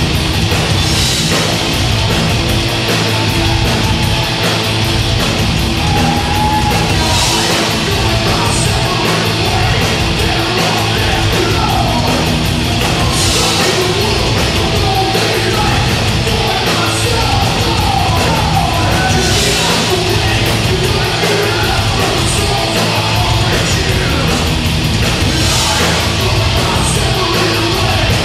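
Live heavy metal band playing loudly: distorted electric guitars and drums, with shouted vocals over the top. A cymbal crash lands about every six seconds.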